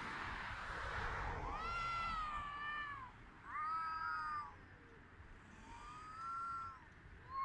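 Domestic cats caterwauling in courtship: drawn-out yowls, each rising then falling in pitch, three long ones and a short one at the end, after a breathy hiss-like noise at the start. It is the mating call of cats commonly heard at night.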